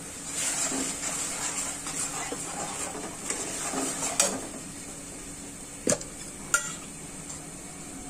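Long metal spoon stirring and scraping around an aluminium pot of spiced liquid for about four seconds, then two sharp metal clinks of the spoon against the pot about half a second apart.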